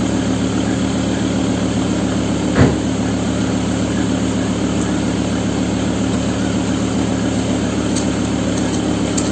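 Volvo S60's inline five-cylinder engine idling steadily, heard at the exhaust, with one short sharp louder sound about two and a half seconds in.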